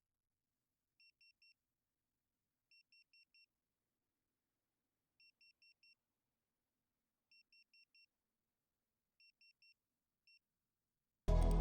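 Faint, high electronic beeps in quick groups of three or four, repeating about every two seconds. Music comes in right at the end.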